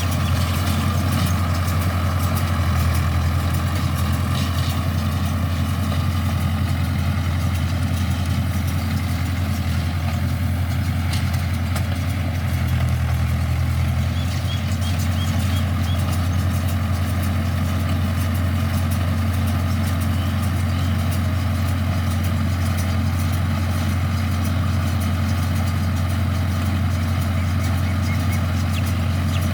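Mahindra tractor engine running steadily with a deep hum. It rises slightly in tone for a moment twice.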